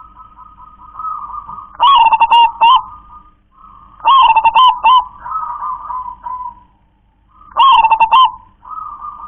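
Local zebra dove (perkutut) cooing: three loud rolling song phrases, roughly two to three seconds apart, with softer coos between them. This is the song the bird is kept for, written by fanciers as 'klar-ke-tek-kong'.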